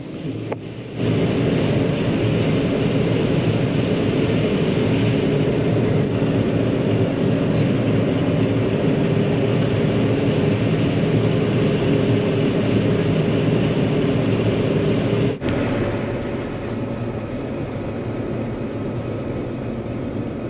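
John Deere 9500 combine running steadily while harvesting corn, a dense machine noise with a steady engine hum. It cuts in suddenly about a second in, and about 15 s in it becomes a little quieter with a faint high steady whine.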